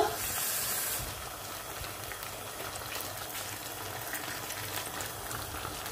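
Water added to a pan of hot, cornflour-thickened sweet and sour sauce, hissing for about a second, then the sauce bubbling steadily at a simmer.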